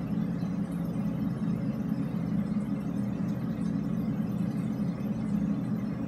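Steady low rumbling noise inside a drainpipe, picked up by a recorder five feet down the pipe under a sofa cushion. No air-horn blast stands out.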